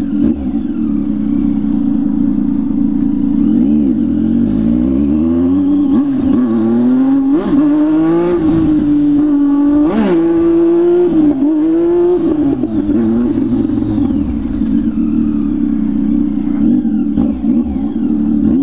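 Motorcycles with open exhaust pipes running loud and steady, with the revs climbing and dropping several times in the middle.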